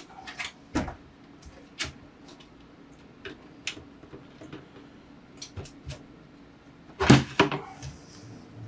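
Asus TUF GT301 PC case being handled: scattered light clicks and taps, then two loud knocks close together about seven seconds in.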